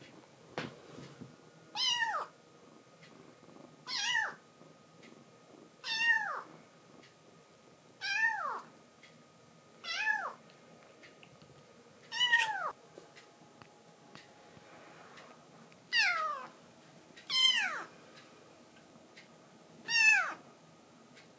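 Young black-and-white kitten mewing repeatedly, about one call every two seconds, nine in all. Each meow slides down in pitch, and there is a longer pause about two-thirds of the way through.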